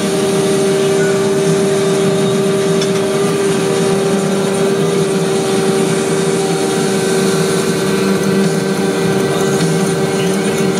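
Vacuum paver-laying machine running steadily, its engine giving a constant hum with a steady high tone over it.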